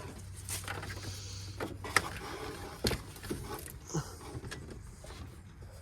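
Handling noise from hands working a serpentine belt around the engine's pulleys: a few sharp clicks and knocks, the loudest about two seconds in, over a low hum that stops about two seconds in.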